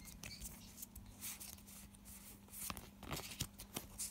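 Faint rustling and soft clicks of Pokémon trading cards being handled and slid through the fingers, over a low steady hum.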